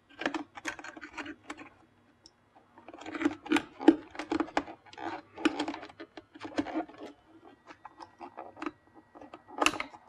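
Small plastic wire connectors being pinched and wiggled loose from an electric unicycle's control board: a run of irregular light clicks and the rustle of wires and plastic, with a sharper click near the end.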